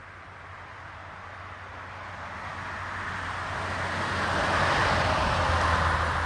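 A car approaching on an asphalt road, its tyre noise and engine growing steadily louder and passing close near the end, then starting to fade.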